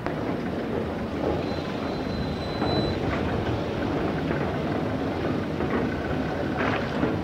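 Steady mechanical rumble with no clear pitch, with a few faint clatters on top.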